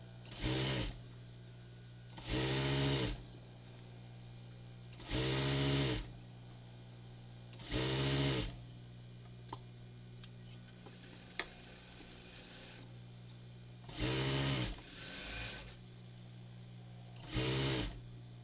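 Electric sewing machine stitching a shirt cuff in short runs: six bursts of half a second to a second, with a softer one near the end, over a steady hum, with a few light clicks between runs.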